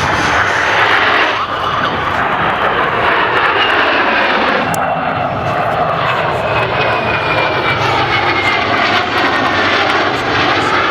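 Aircraft flying past, their engines loud and steady, with a high whine that falls slowly in pitch midway through.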